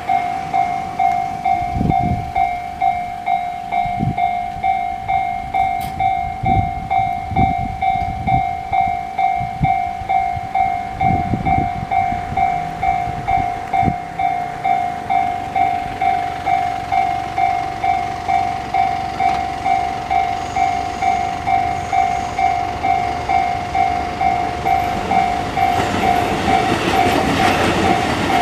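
Japanese railway level-crossing warning bell ringing, a repeating electronic ding about one and a half times a second. Near the end, the noise of an approaching train rises beneath it.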